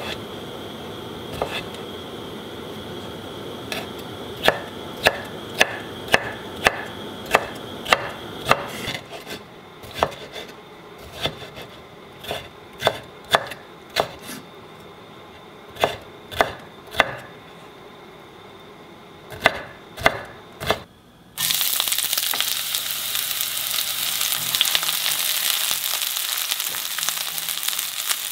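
Kitchen knife chopping chonggak kimchi radish on a wooden cutting board: a steady run of strikes about two a second, then slower, uneven chops. About 21 seconds in it cuts abruptly to sliced green onions sizzling in hot oil in a frying pan as they are stirred with a wooden spatula, to make scallion oil.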